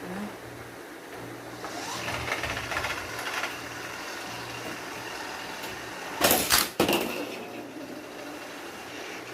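Plastic toy track and die-cast cars rattling and clattering, with two loud knocks about six seconds in, over a steady low hum.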